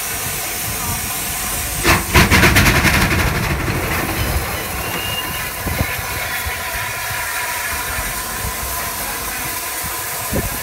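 Bulleid Merchant Navy class steam locomotive 35018 hissing steadily. A louder rush of steam comes about two seconds in and lasts a second or so, and another short surge comes near the end.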